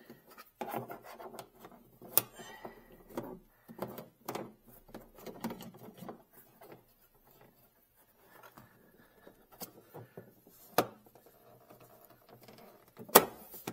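Hands unhooking a battery charger's clamp and cable from the car's terminal post: rubbing and scraping of cable against plastic trim, with a few sharp clicks, the loudest near the end.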